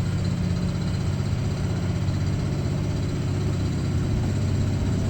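CNC milling machine running with a steady low hum.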